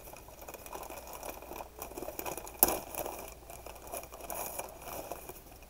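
Gift wrapping paper rustling and crinkling as a present is unwrapped carefully to save the paper, with one sharp snap about two and a half seconds in.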